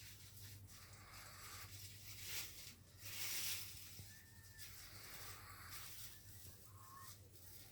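A sleeping pug breathing noisily through its nose: several airy breaths, the loudest about three seconds in, with a brief whistle a little past the middle and another near the end.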